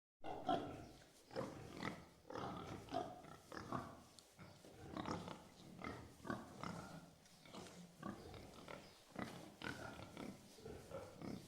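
Several pigs grunting and oinking in a shed, a dense run of short grunts several times a second.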